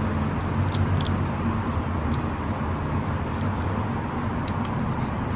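Small plastic Lego pieces clicking and tapping now and then as they are handled and fitted back together, over a steady low hum.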